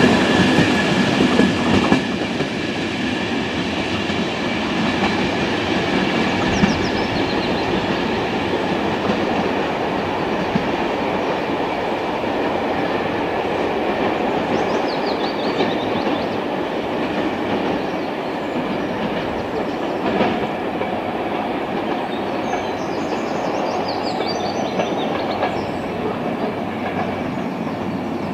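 Corail passenger train hauled by two BB 67400 diesel locomotives pulling away: loudest in the first two seconds as the last coaches roll past over the rail joints, then a steady rumble as the train draws off into the distance.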